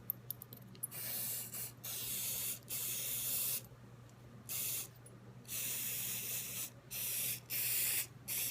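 Aerosol spray can hissing in about seven separate bursts, some short and some over a second long, as a stripped 1911 pistol's parts are sprayed down for cleaning. A few light clicks come before the first burst.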